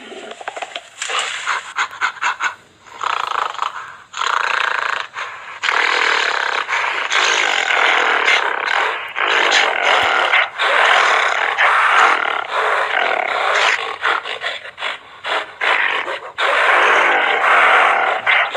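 A large animal roaring and grunting in a run of rough, noisy calls, each up to about two seconds long, with short breaks between them.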